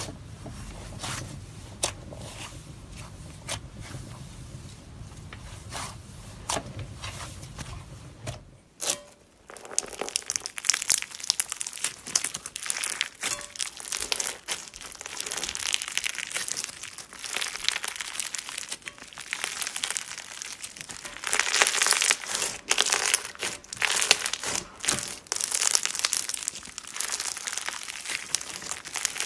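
Hands pressing and stretching a fluffy purple slime, with soft crinkling over a low hum. About nine seconds in it changes to a red slime packed with beads being squeezed and stretched, giving dense crunching and crackling that swells and eases in waves.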